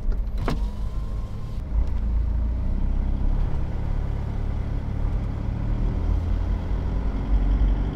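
Isuzu 4JJ1 four-cylinder turbo-diesel in a Nissan Patrol, heard from inside the cab, pulling away in first gear with a steady low drone that grows louder near the end. A single sharp click about half a second in.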